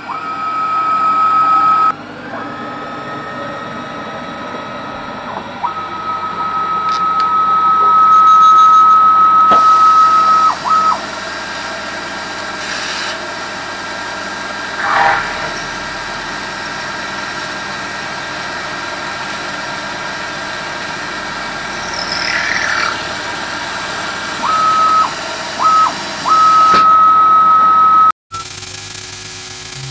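CNC mill spindle running with a steady high whine while spot-drilling and then drilling a 7 mm hole in an aluminium block. The whine dips and comes back several times, a steady hiss runs through the middle, and the sound cuts off suddenly near the end.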